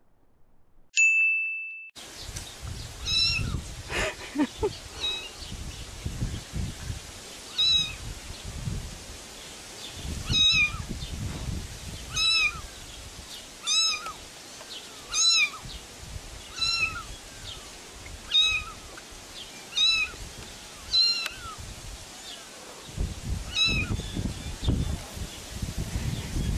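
A cat meowing over and over, a short rising-and-falling meow about every second and a half, over low rumbling noise. A brief ding about a second in.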